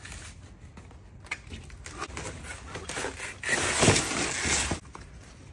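Cardboard box and packing material being pulled open: scattered crinkles and clicks, then a louder stretch of rustling and tearing from about three and a half seconds in, lasting just over a second.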